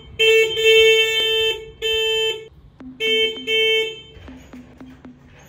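An electric scooter sounding loud, buzzy electronic beeps in a string of long and short blasts. About three seconds in they give way to quieter, lower-pitched beeps.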